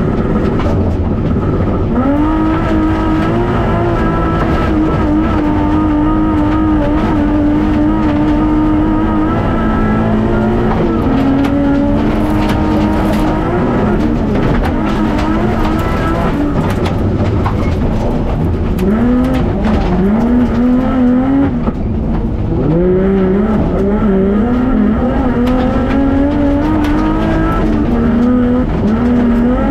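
Autocross race car engine heard from inside the cockpit, running hard on a dirt track, its revs climbing and dropping repeatedly through gear changes and lifts, over the steady rumble of the car on the loose surface.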